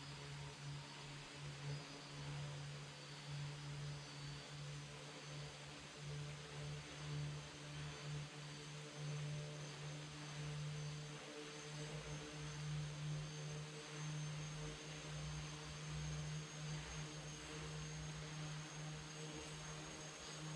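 Steady hum of a small aircraft's motor and propeller in flight, holding an even pitch with a faint high whine above it and an unsteady low rumble beneath.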